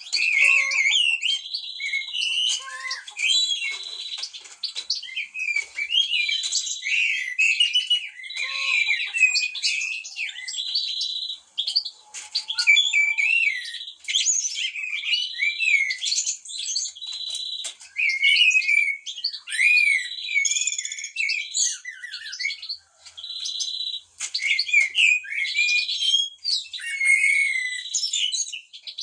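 Blackbirds and other songbirds singing together: a dense mix of quick whistled chirps and warbling phrases, with a steady buzzing trill repeating every few seconds.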